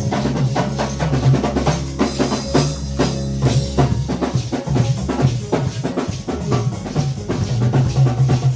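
Live praise band music with a busy drum kit beat, snare and bass drum, over a steady low bass line.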